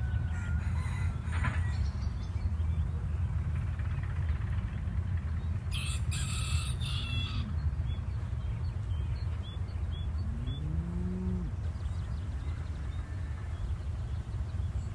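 Farmyard chickens, a rooster and hens clucking, over a steady low rumble. There is a short loud burst about six seconds in, and a low drawn-out animal call that rises and falls about ten seconds in.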